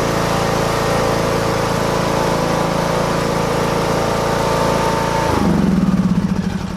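John Deere lawn mower's small gasoline engine running steadily at speed. About five seconds in, its speed falls sharply as it is shut down, and it chugs slower and lower near the end.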